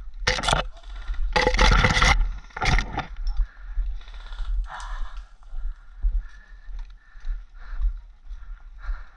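Scraping and rustling of branches and dry leaf litter against clothing and kit as a person pushes through woodland undergrowth, loudest in a few bursts over the first three seconds and softer after, over a steady low rumble.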